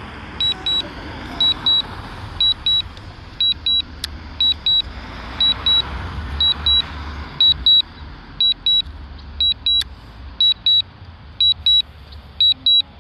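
Drone remote controller beeping in quick double beeps about once a second while the drone comes down in auto-landing, over a steady low rumble of wind on the microphone.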